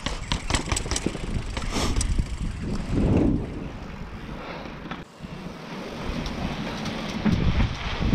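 Mountain bike bumping down paved stone steps, a quick run of about eight knocks and rattles in the first two seconds. Then the tyres roll over asphalt and paving, with low wind rumble on the microphone.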